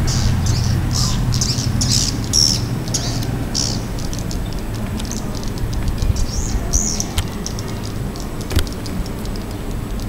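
Edible-nest swiftlets chirping overhead: many short, high chirps, thick over the first few seconds and then sparser, over a steady low rumble.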